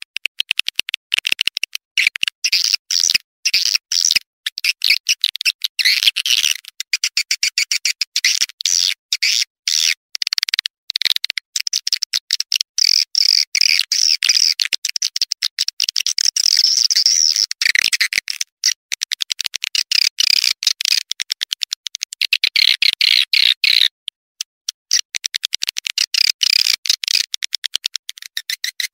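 Swiftlet calling-sound track (suara panggil walet), a blended mix of swiftlet calls used as a lure to draw swiftlets into a nesting house. It is a dense, unbroken run of rapid, high, clicking chirps and chatter, with a couple of brief gaps.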